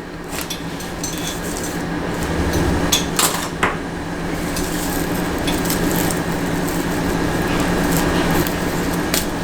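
Magnetic hair rollers and bobby pins being pulled out of gel-set hair, with a few light clicks and rattles over a steady low hum.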